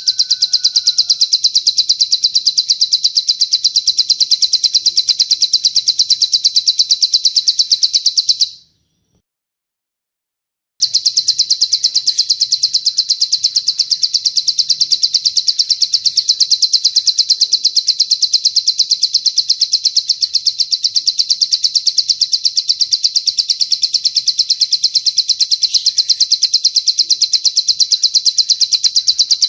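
Recorded bird song used as bird-keeper's training audio: a long, rapid, high-pitched 'cililin panjang' trill that repeats on and on at an even pace. It breaks off for about two seconds near a third of the way through, then resumes.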